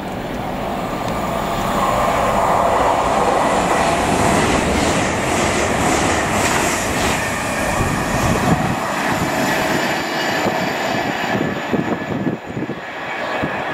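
TransPennine Express Class 802 passenger train passing close by, a steady rumble and rush of wheels on rail that swells about two seconds in and eases off after about nine seconds.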